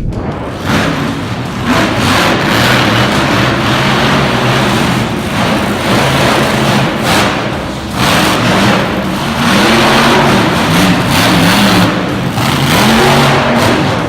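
Monster truck engine running loud at high revs, its pitch rising and falling several times as the throttle is worked, with a dense rush of exhaust noise over it.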